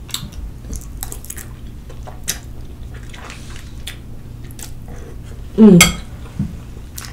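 Metal fork clicking and scraping against a glass bowl as noodles are twirled and lifted, with chewing between. About five and a half seconds in comes a short, loud vocal sound from the eater that falls in pitch.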